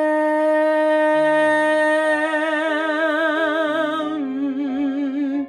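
A woman singing solo, holding one long note on the word "I" that takes on vibrato about two seconds in, then stepping down in pitch to "am" near the end, over a soft instrumental backing track.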